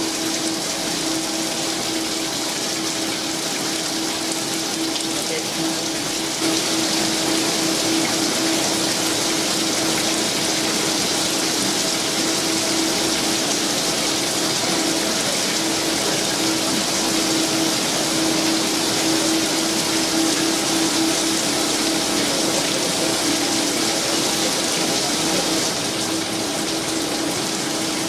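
Gear shaping machine cutting an internal helical gear under a flood of cutting oil: a steady splashing hiss of coolant with a steady low hum underneath. The sound grows a little louder about six seconds in and drops back near the end.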